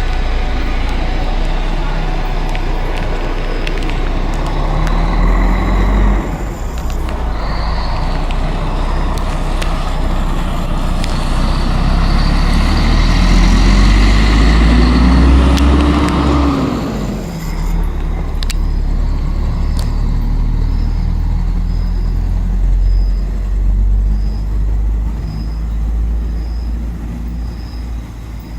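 Mercedes-Benz O-500 RSD coach's diesel engine running loud. It revs up through a gear about four to six seconds in and breaks off, then makes a longer, louder pull that climbs in pitch until around sixteen seconds before easing off. After that it runs lower and steadier, with a faint high tick repeating under a second apart.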